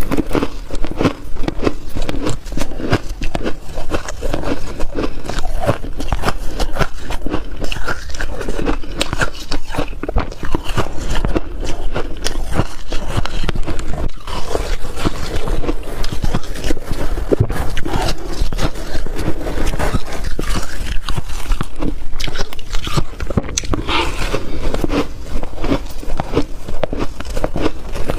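Frost being dug out by hand and chewed: a continuous run of dense crunches and scrapes.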